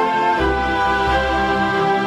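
Background music: sustained instrumental chords, changing to a new chord about half a second in.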